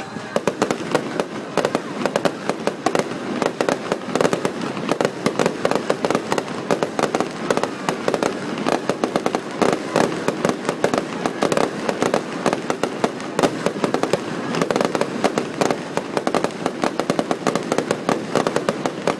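Fireworks going off in a dense, continuous barrage of rapid bangs and crackles, with no let-up.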